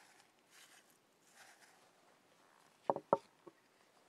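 Wooden pestle knocking in a mortar three times in quick succession about three seconds in, as basil is pounded for pesto. Faint rustling before the knocks.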